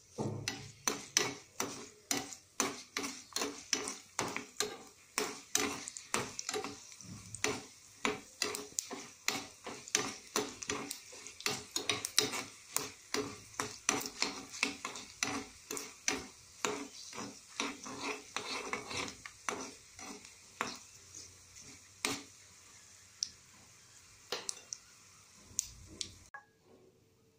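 A metal ladle scraping and clacking against a metal kadai as it stirs dried red chillies and curry leaves frying in hot oil, with a sizzle beneath, about two or three knocks a second. It cuts off near the end.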